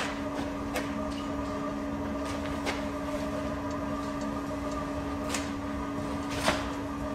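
A steady hum, with a few scattered light clicks and knocks from work on an engine being lowered into a car body.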